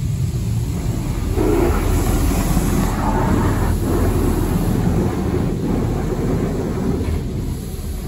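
High-pressure water spray from a touchless automatic car wash hitting the car's windows and body, heard from inside the cabin: a steady low rumble under a hiss of spray that swells about a second in and eases near the end.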